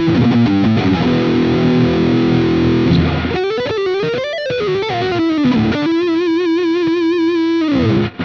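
Electric guitar played through distortion on a Thinline Telecaster: chords and notes at first, then a lead line with string bends rising and falling, ending on a long held note with vibrato that drops in pitch and stops just before the end.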